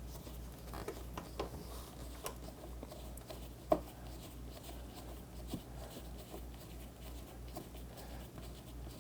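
Phillips screwdriver turning a screw into a plastic refrigerator door stopper by hand: faint scraping and small clicks, with one sharper click a little under four seconds in.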